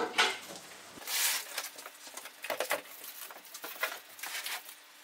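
Cardboard carton being handled and its flaps pulled open: irregular rustling and scraping, with a louder scrape about a second in.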